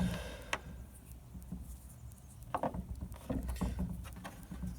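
Handling noise from fitting the plastic band and bezel parts of a Casio G-Shock watch: a few small clicks and taps over a low rumble.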